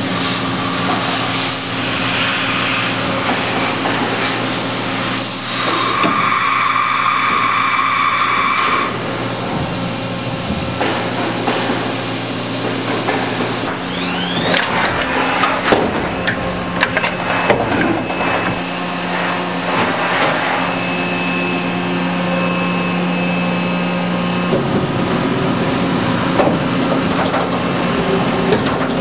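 Mitsui Seiki HU63A horizontal machining center running under power: a steady machine hum, joined for about three seconds early on by a high steady whine. Around the middle comes a stretch of mechanical clicks and clatter.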